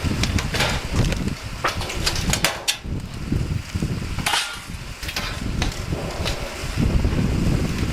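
Irregular knocks and taps from roofing work, with wind rumbling on the microphone.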